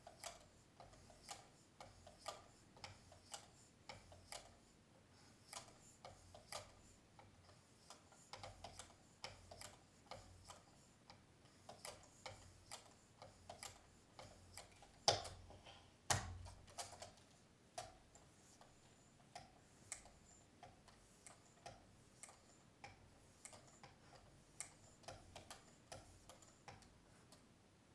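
Faint clicks and light taps, about one or two a second, from a Work Sharp Precision Adjust sharpener's hone arm being stroked back and forth along a knife edge with 9-micron lapping film. Two louder knocks come about halfway through.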